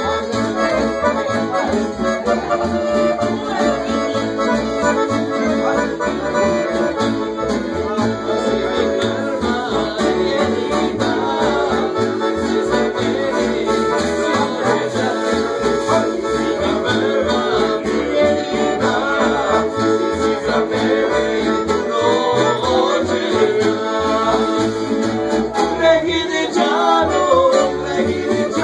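Live Serbian folk band playing. Accordion leads over strummed guitars, a small plucked-string instrument and upright bass, with men singing along, more clearly in the second half.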